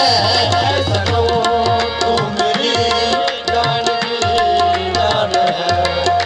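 Qawwali music between sung verses: harmonium playing a melody of held notes over fast, steady drumming.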